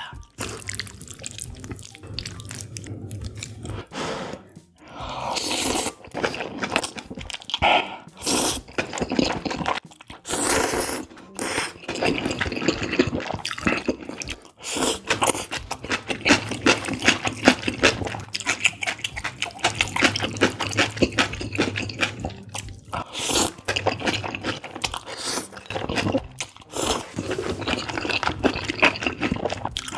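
Close-miked eating of spicy chicken kalguksu: wet slurping of noodles in broth and chewing, with several louder slurps spread through.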